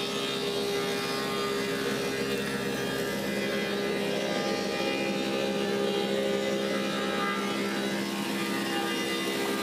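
Woodmaster 725 planer running steadily, its cutterhead planing a spalted apple slab fed through it: a constant machine drone with a few fixed tones over a hiss of cutting.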